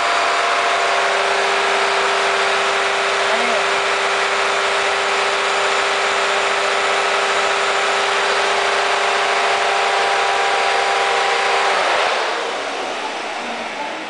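Vacuum cleaner motor running with a steady hum and hiss. About twelve seconds in it is switched off and winds down.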